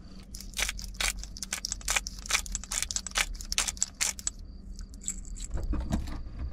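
A utensil stirring thick egg salad in a glass measuring cup: a fast, irregular run of clicks and scrapes against the glass that stops about four seconds in.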